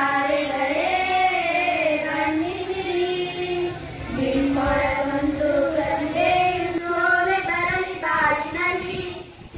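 Girls singing a song into a microphone, with long, wavering held notes and a brief dip just before the end.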